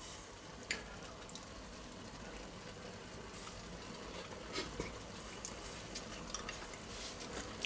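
Mustard sauce simmering quietly in a saucepan on the hob, a faint steady hiss with a few light clicks.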